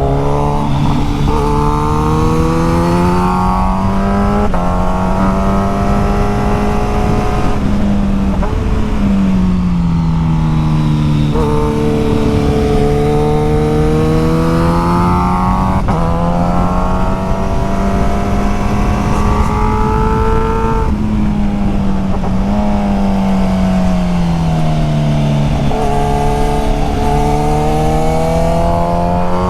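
Sport motorcycle engine heard from on board, revving up through the gears with a rising pitch, dropping at each gear change, and falling away smoothly on deceleration, several times over, under a steady rush of wind noise.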